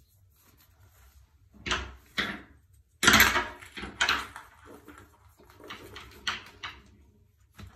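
Hands setting mesh-backed pebble tile sheets into wet thinset mortar: a series of short rustles and light knocks, loudest about three seconds in, then a run of smaller ones.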